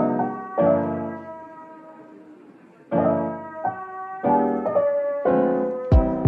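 Background piano music: chords struck every second or two and left to ring and fade, with a sharp percussive hit near the end.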